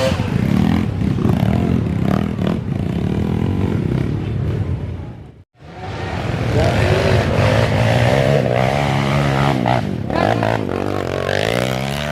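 Off-road dirt bike engines revving hard, the pitch rising and falling repeatedly. The sound cuts out sharply for a moment about halfway through.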